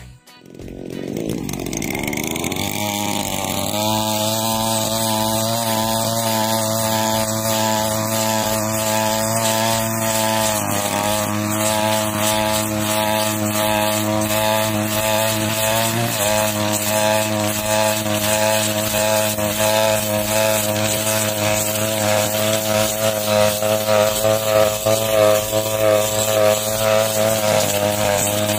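Petrol brush cutter (grass trimmer) engine running steadily while a steel blade cuts dry, dead grass. The engine note dips briefly twice, about 11 and 16 seconds in.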